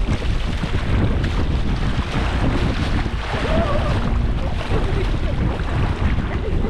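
Wind buffeting the microphone with a steady low rumble, over the wash of sea surf on the rocks.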